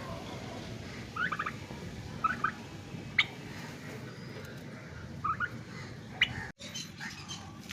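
Short bursts of bird calls, about five clusters of quick notes, over a steady low background noise.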